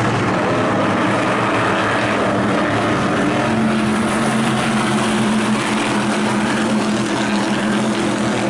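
A field of modified race cars' engines running together at racing speed around a short oval, a steady engine sound with no single car standing out.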